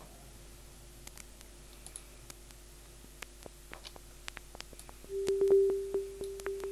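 Sparse, irregularly spaced synthesized clicks from the Vital soft synth, triggered by an arpeggiator with a randomised rate, over a faint steady hum. About five seconds in, a louder steady sine-wave tone from the synth's oscillator comes in under the clicks.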